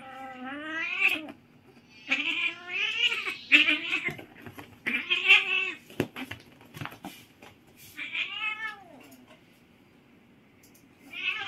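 Siamese cats yowling while they wrestle: about six drawn-out calls, each about a second long, rising and then falling in pitch, with short gaps and a few knocks in between. The calls stop for a couple of seconds, and one more starts near the end.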